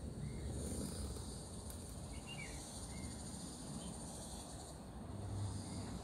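Steady high-pitched insect drone, cicadas or crickets, with a few faint short bird chirps about two to three seconds in, over a low rumble of outdoor background noise.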